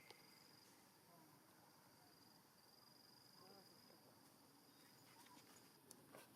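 Near silence: faint outdoor ambience with a steady high insect buzz, and a few faint clicks near the end.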